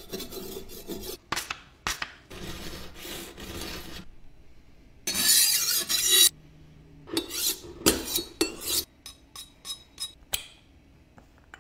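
Steel kitchen knife blade scraped across sharpening stones in a series of rasping strokes, with a louder, harsher stretch about five seconds in, then shorter strokes and a few brief ticks near the end.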